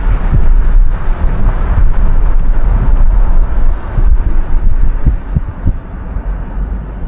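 Wind buffeting the microphone over the steady rumble of a moving car, easing off somewhat near the end.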